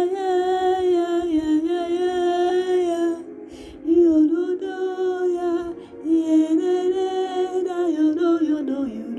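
A woman's voice singing long, wavering held notes with no clear words, in a slow, hummed or chant-like worship line. It breaks off briefly about three seconds in and again around six seconds.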